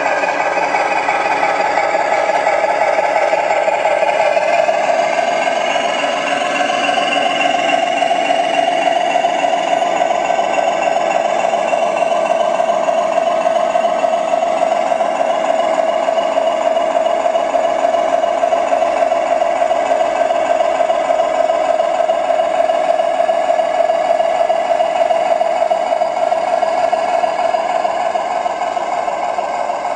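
Radio-controlled model construction machines running: a steady, mid-pitched motor whine with a fine rattling texture. The pitch settles slightly lower and stronger about six seconds in.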